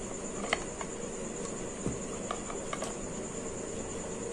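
Light taps and clicks of a metal rolling pin and fingers on a metal rolling board as a thin puri is rolled out and handled, over a steady high-pitched whine in the background.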